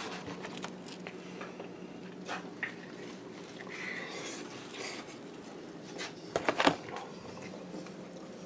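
Soft mouth and handling noises of a slice of frozen pizza being bitten and chewed over a steady low room hum, with a brief louder cluster of sharp noises about six and a half seconds in.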